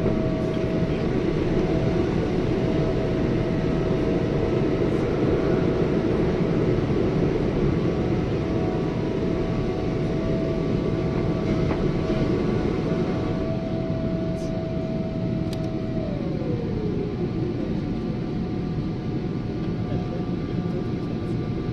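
Jet airliner's engines at takeoff power, heard from inside the cabin: a loud, steady rumble with a thin whine over it, through liftoff and into the climb. About sixteen seconds in, the whine glides down in pitch.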